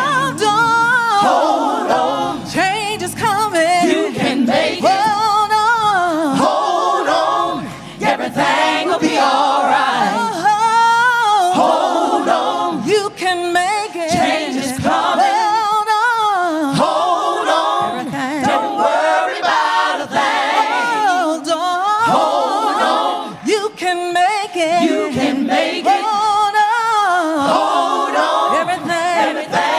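Gospel vocal ensemble singing live in harmony, voices with strong vibrato and little or no bass accompaniment.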